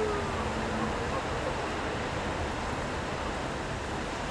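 Steady city street ambience: a constant wash of traffic noise. A passing vehicle's falling tone fades out in the first half-second.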